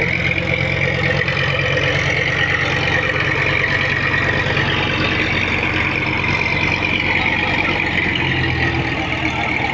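Engine of the KM. Kharisma Rizky 01, a Mahakam river taxi boat, running steadily: a loud, even low drone with a higher hiss over it.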